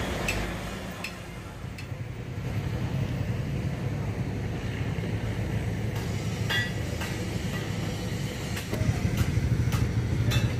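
A diesel truck engine running steadily, its low rumble growing louder about nine seconds in, with scattered metallic clinks and knocks over it.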